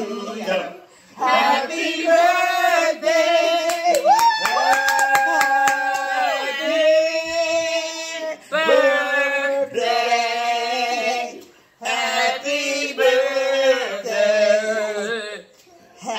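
A small group of men and women singing a birthday song together, with a long held note about four seconds in and some hand claps.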